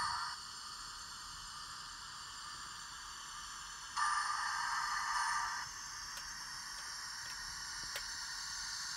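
00 gauge model train running past slowly: a steady hiss with two stretches of louder hiss that switch on and off abruptly, and a few faint clicks near the end.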